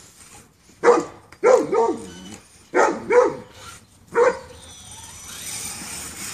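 A husky barking, about six short barks in quick groups of one or two, each falling slightly in pitch.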